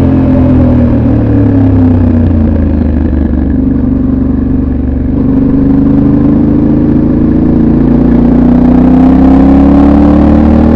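Yamaha Ténéré 700 World Raid's 689 cc parallel-twin running through its stock exhaust while riding. The engine note falls over the first few seconds as the bike slows, then about five seconds in it climbs steadily as the rider accelerates.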